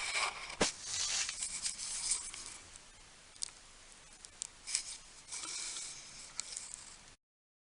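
Scattered clicks and rustling, busiest in the first two seconds and again near the end, then the sound cuts off abruptly about seven seconds in.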